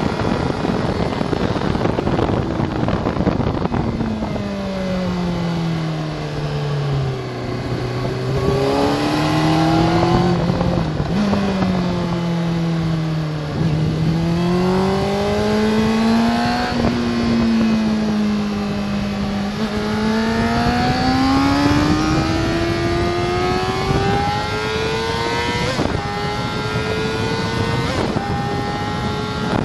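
Sport motorcycle engine heard from on board at track speed. Its pitch falls through the first half as the bike brakes for a slow bend, with small jumps on the way down, then climbs as it accelerates hard, dropping sharply three times at the upshifts. Wind rush runs under it throughout.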